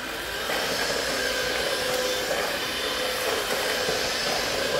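Black & Decker 20-volt cordless stick vacuum running steadily, a motor whine over a rush of air, as it is pushed across a stone floor.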